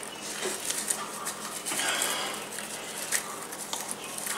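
Popcorn being rummaged through in a plastic bowl by hand and crunched while being chewed: scattered small clicks and rustles, with a breathy hiss about two seconds in.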